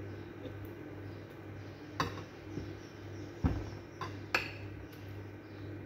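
Metal spoon and fork clinking and scraping against a ceramic plate, a few separate clinks from about two seconds in, with a dull thump around the middle. A low steady hum runs underneath.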